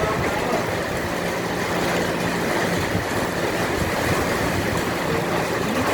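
Floodwater rushing down a flooded street in a steady, loud torrent, the water rising from heavy rain upstream. A faint low hum sits under it for the first couple of seconds.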